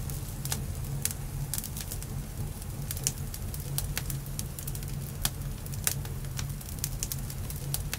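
Wood campfire crackling: irregular sharp pops and snaps over a steady low rumble.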